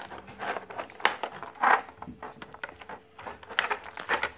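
Clear plastic blister packaging crackling and rustling as it is handled and cut free with scissors, in a series of short scrapes and clicks.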